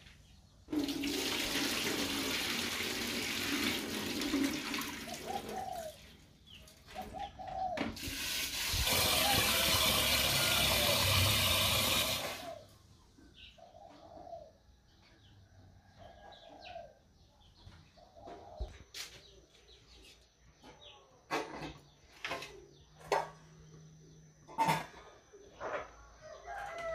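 Tap water running hard into a metal pot to rinse rice, in two long pours, the second the loudest. Hens cluck in the background, and a series of sharp clicks and knocks comes in the last several seconds.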